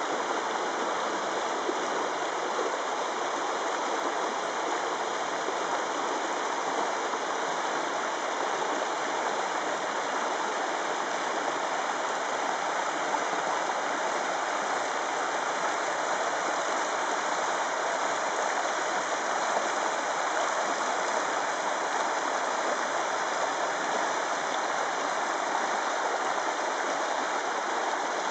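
Shallow rocky creek rushing over boulders in small rapids and riffles: a steady, even rush of flowing water.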